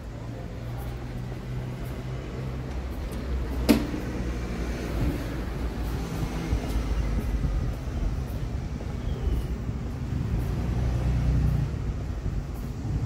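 Street traffic: vehicle engines running and passing with a steady low rumble, and one sharp click a little under four seconds in.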